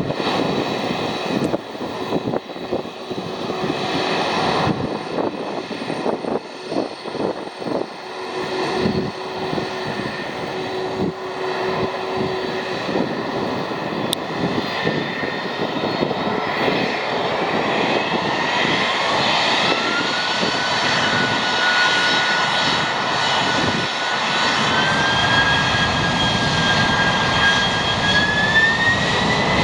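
Jet engines of a Boeing 767-300ER, GE CF6-80C2 turbofans, running up for takeoff: a steady jet rumble with a whine that climbs in pitch from about two-thirds of the way in, holds, and rises again in steps near the end as thrust builds.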